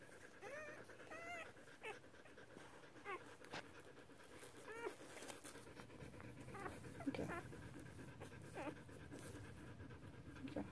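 Faint short squeaks from newborn standard poodle puppies, a few in the first second and a half and one near the middle, amid light panting from the whelping mother dog.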